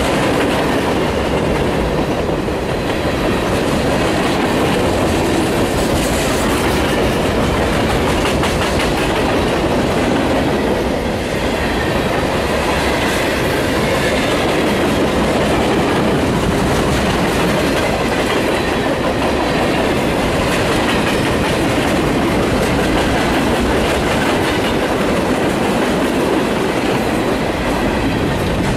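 Freight train of boxcars and tank cars rolling past close by: a loud, steady rumble of steel wheels on the rails with clacking as the wheels pass over the track.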